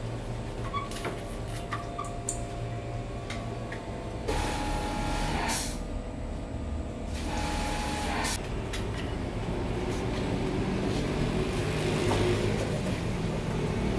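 A pressure washer's motor running with a steady hum, and from about four seconds in its water jet spraying with a hiss, with a couple of brief louder spurts.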